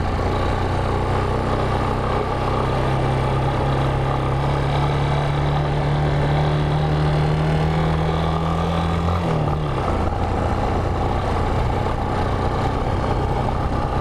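Motorcycle engine running steadily under way, with wind and road rush. The engine note climbs slowly, then drops sharply about nine seconds in and settles at a lower steady note.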